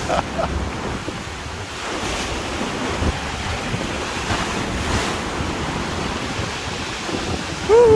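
Choppy, storm-driven sea surf breaking and washing in, with wind buffeting the microphone. Near the end a brief loud call, falling slightly in pitch, cuts in over it.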